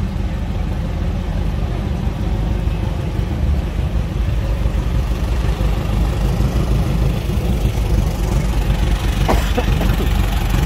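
Vintage car engines running at low speed as an old coupe drives slowly past, with a steady low rumble that grows a little louder near the end as an antique fire engine comes up.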